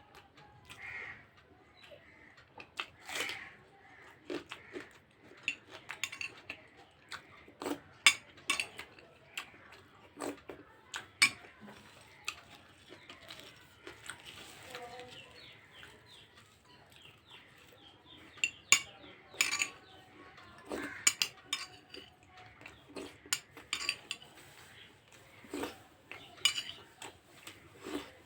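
Irregular clinks and taps of a utensil against a plate while someone eats, scattered unevenly throughout.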